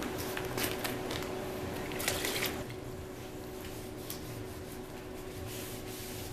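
A wet rag splashing in a bucket of water and degreaser and being rubbed over a steel table-frame leg, busiest in the first two and a half seconds, over a steady background hum.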